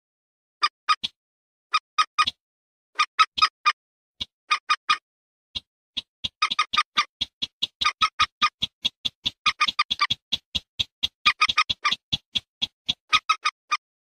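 Lure-recording calls of a common moorhen and a rail: short, clipped 'kek' notes in quick groups of two to four. From about six to twelve seconds in, the notes become a dense overlapping run, as of more than one bird calling at once.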